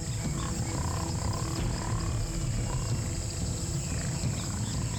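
Jaguar growling: a low, rough rumble that carries on without a break.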